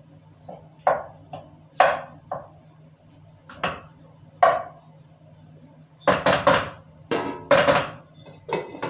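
A cooking utensil knocking and scraping against a pan as pasta is stirred on the stove: about ten short, sharp knocks, spaced out at first and coming closer together and louder from about six seconds in.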